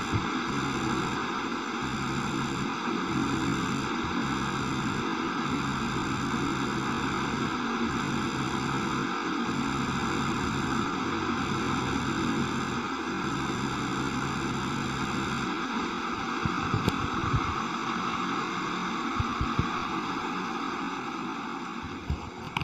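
Steady static-like hiss with an electrical hum under it; a low hum and a faint high whine cut in and out together and stop about two-thirds of the way through.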